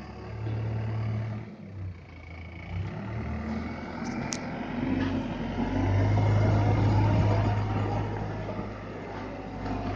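Diesel engine of a Dieci 70.10 telehandler running as the machine drives past. The engine grows louder a little past the middle while the boom lifts the loaded bucket. There is one sharp click about four seconds in.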